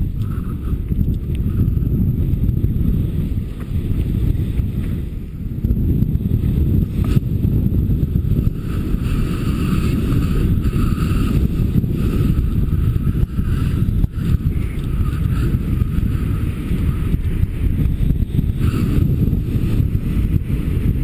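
Wind rushing over the microphone of a paraglider pilot's camera in flight: a loud, steady low rumble that swells and dips.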